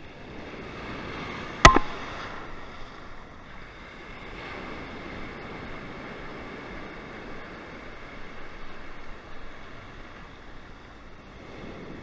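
Sea surf breaking and washing up the beach, a steady rush of waves. One sharp click about two seconds in.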